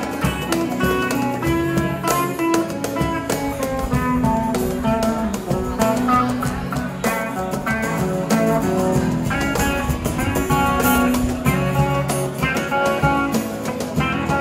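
Live guitar music from a small band: lead notes picked on an electric guitar over strummed acoustic guitar chords.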